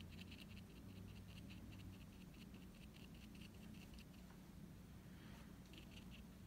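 Faint scratching of a small watercolour brush dabbing and stroking on watercolour paper, in a quick run of short strokes. The strokes pause after about two and a half seconds and resume briefly near the end.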